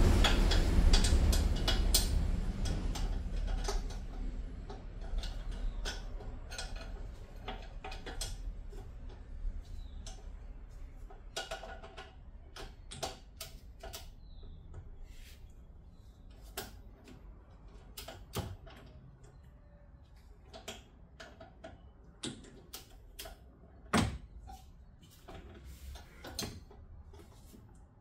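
Scattered clicks, clinks and knocks of hand tools and parts being handled during work on a car's rear suspension, with one louder knock about 24 seconds in. A loud low rumble fades away over the first few seconds.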